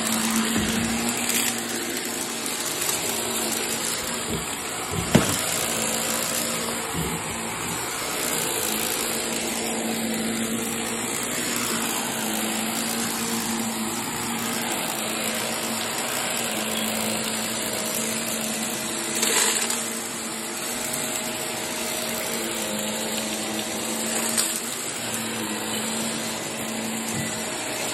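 Upright vacuum cleaner running steadily on carpet: a constant motor hum under a strong airflow hiss. There is a sharp knock about five seconds in, and two brief swells of noise later on.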